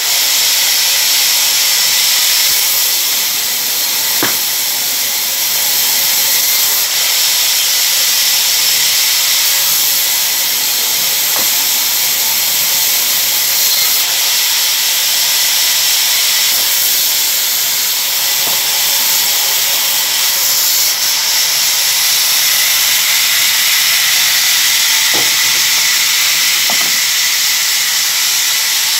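Vertical band saw running and cutting through mango wood, a loud, steady hiss with a few faint knocks.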